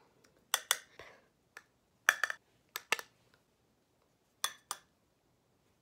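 Sharp little plastic clicks and taps, mostly in quick pairs, about ten in all, from handling a round plastic compact of setting powder and a makeup brush.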